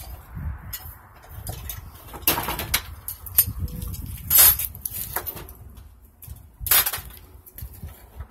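Metal mini bike frame parts being handled, with several short clanks and scrapes, the loudest about four and a half seconds in, over rumbling handling noise on the phone's microphone.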